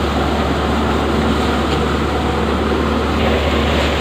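Tractor-driven paddy thresher running steadily under load, with the tractor engine: a loud, unbroken machine noise.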